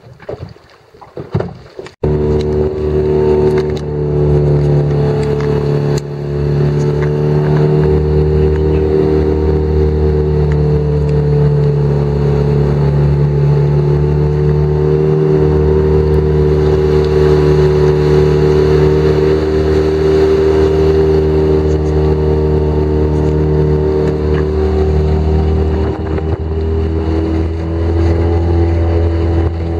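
Outboard motor running steadily at speed, driving an inflatable PVC boat; it cuts in abruptly about two seconds in.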